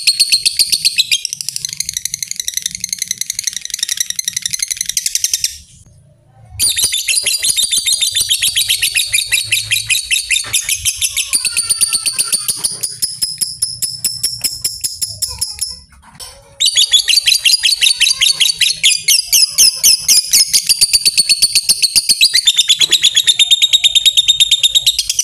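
Lovebird giving a long, rapid, high-pitched chattering trill (the 'ngekek panjang' of a fighter lovebird), in long runs broken by two short pauses, about six and sixteen seconds in.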